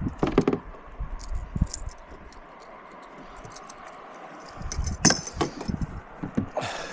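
Rattling, clicking and knocking of gear being handled in a kayak as a landed bass is dealt with, with a denser cluster of knocks about five seconds in. Under it runs a steady hiss of flowing river water.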